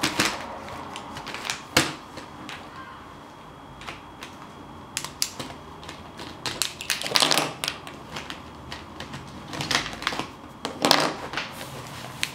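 Typing on a computer keyboard: irregular runs of sharp key clicks, with two denser flurries in the second half.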